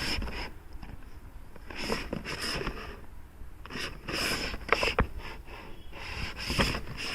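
A toy's cardboard box being handled and turned over in the hands, with irregular rustling and scraping.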